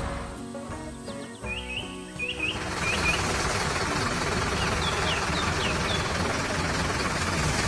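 Birds chirping in short, quick runs of high notes, twice, over background music and a steady noisy hum that swells in about two and a half seconds in.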